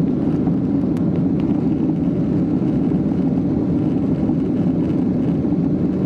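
Steady low drone of a Boeing 767's twin jet engines and airflow heard inside the passenger cabin, holding an even level.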